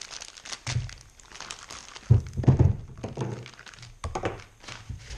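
Crinkling and rustling of a plastic bag as it is handled and torn open by hand, with several dull thunks of things knocking against the van roof.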